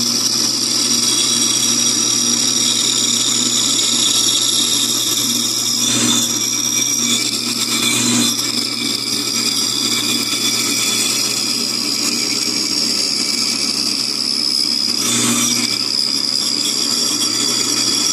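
Bandsaw running steadily with a motor hum and a high whine while its blade cuts a curved car outline out of a wooden 2x4. Brief louder moments come about six, eight and fifteen seconds in.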